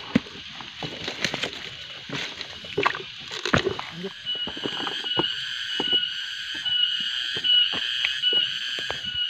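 Footsteps knocking and scuffing along a forest trail. From about four seconds in, a steady high-pitched insect chorus joins them, pulsing rhythmically under the steps.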